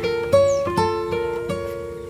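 Background music: a melody of plucked string notes, each struck and then fading.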